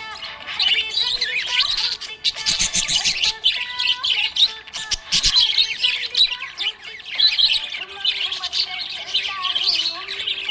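Budgerigars chirping continuously, short calls packed closely one after another.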